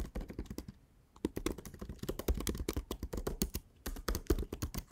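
Typing on a computer keyboard: a quick, irregular run of key clicks with a short pause about a second in.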